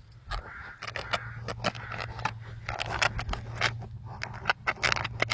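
A Rottweiler at play: irregular quick clicks, knocks and scrapes, thickening a little past the middle, over a low steady hum.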